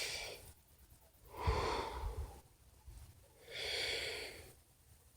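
A person taking slow, deep breaths close to the microphone to calm his nerves: about three long, airy breaths with silent pauses between them.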